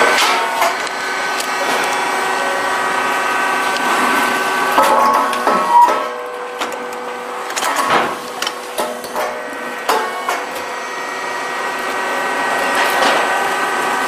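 A puffed-cake popping machine, puffing barley in its heated molds, runs with a steady mechanical whine. Several sharp knocks and pops come at uneven intervals as the mold heads work.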